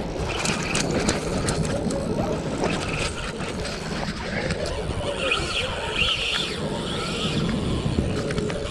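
Strong wind buffeting the microphone over choppy lake water, with scattered clicks early on and a raspy high-pitched sound coming and going from about five seconds in.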